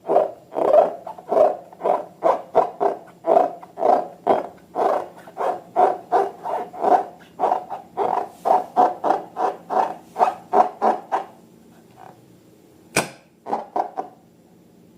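Slime being squeezed and worked by hand, a rapid, even run of wet squelches about three a second that stops after about eleven seconds. A single sharp snap comes near the end, followed by a few more squelches.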